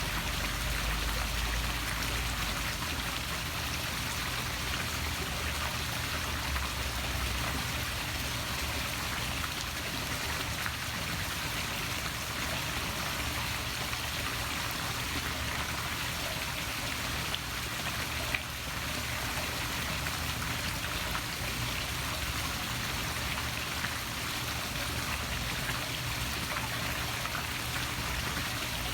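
Poolside waterfall splashing steadily into a swimming pool, an even, unbroken rush of falling water.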